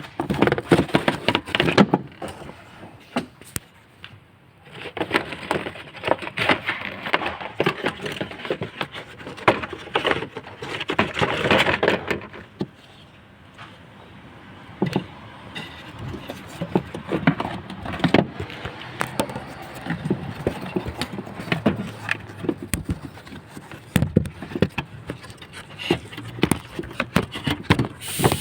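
Hands working a Toyota RAV4's plastic engine air filter housing and its filter: scattered plastic clicks and knocks, with spells of rustling as the filter is handled.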